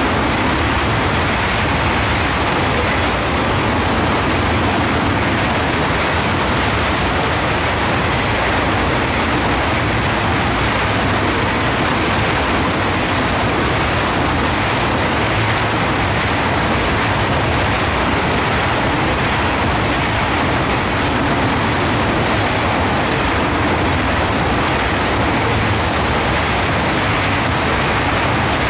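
Steady noise of a long train of empty ethanol tank cars rolling past, steel wheels running and clicking over the rail joints.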